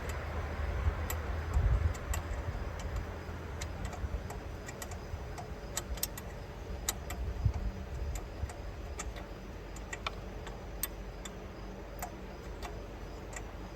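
Scattered light metallic clicks and ticks from a wrench at work on the flange bolts of a golf cart engine's aluminium intake adapter, about one a second and unevenly spaced, over low rumbling handling noise.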